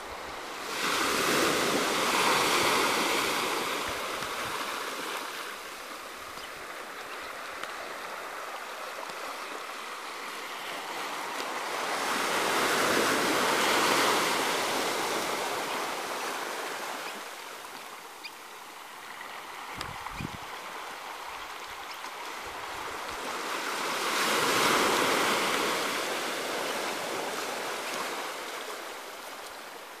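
Small waves breaking and washing up a shallow beach. The surf swells three times, about eleven seconds apart, with a steady hiss of water between.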